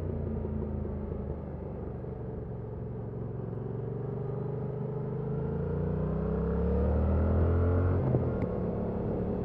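Stock Yamaha MT-07's parallel-twin engine running on the road: the revs fall at first, hold low for a few seconds, then climb steadily under acceleration from about four seconds in before dropping back sharply near the end.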